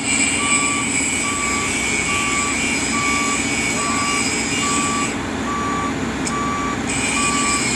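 Excavator's travel alarm beeping at a steady pace, a bit more than one beep a second, over the steady running of its engine.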